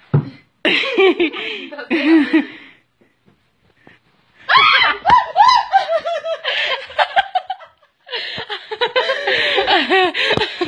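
High-pitched human laughter in three long fits, with short pauses between and a word or two mixed in.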